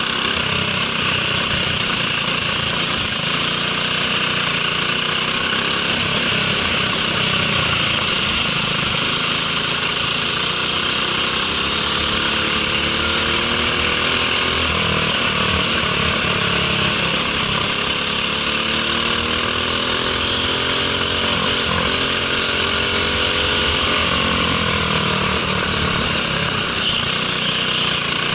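Briggs & Stratton LO206 single-cylinder four-stroke kart engine at racing speed, its pitch rising and falling every few seconds as it revs up on the straights and drops off into the corners, over a steady rushing noise.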